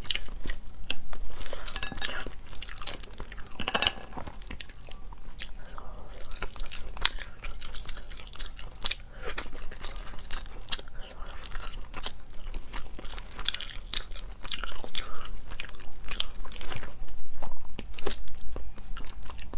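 Cooked crab shell cracking and crunching as it is broken apart by hand and bitten, with chewing of the crab meat in between; irregular sharp crackles, busiest near the end.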